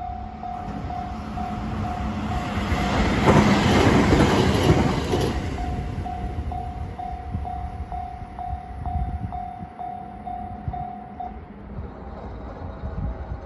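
Japanese level-crossing warning alarm ringing in an even, steady pulse. An Ainokaze Toyama Railway 521 series electric train passes, its noise swelling to a peak about three to five seconds in and then fading away. The crossing alarm stops about eleven seconds in.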